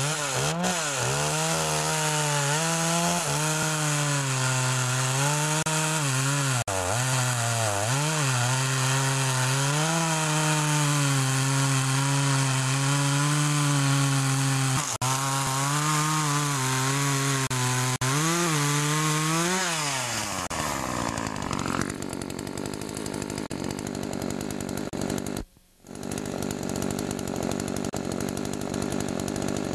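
Poulan 2550 SE 40cc two-stroke chainsaw running at high revs and cutting through an oak log, its pitch wavering as the chain loads and unloads in the wood. About twenty seconds in the revs fall away and the saw runs on at a lower, steadier note, with the sound cutting out for a moment a few seconds later.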